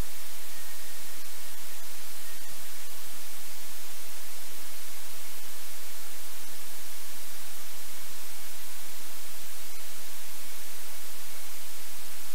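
Steady, even hiss of static or white noise, brightest in the high end, with no other sound standing out.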